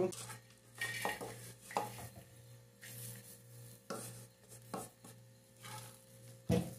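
Metal pans knocked and set down on a gas stove's wire grate, and a wooden spatula scraping dry roasted cupuaçu seed crumbs in a frying pan. There is a scattering of short knocks and scrapes over a steady low hum.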